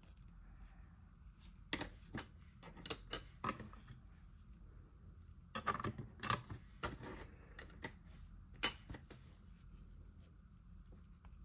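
Light, scattered clicks and taps of plastic petri dishes and a steel scalpel being handled during an agar-to-agar transfer, several small knocks spread over a few seconds.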